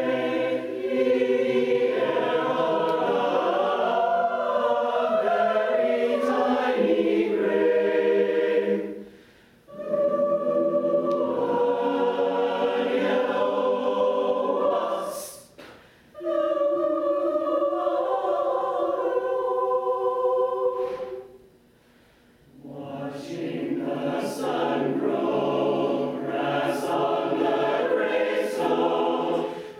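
Mixed choir singing sustained chords in long phrases, breaking off three times into brief silence between phrases. A few short hissing sounds stand out near the middle and towards the end.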